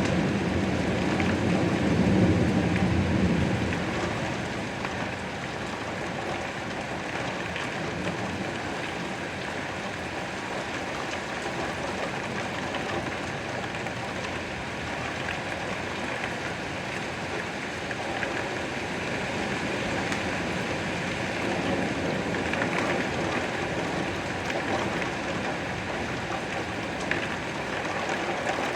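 Steady rain falling, an even hiss of drops on surfaces. A low rumble in the first few seconds fades away.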